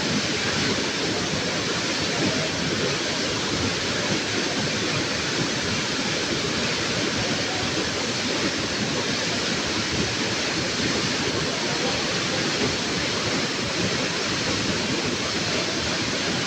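Steady rushing water, an even unbroken hiss with no separate splashes or other events.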